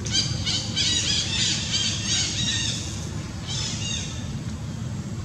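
Macaque giving a rapid series of short, high-pitched squeals, about three a second. They stop after two and a half seconds, and one more squeal comes a second later.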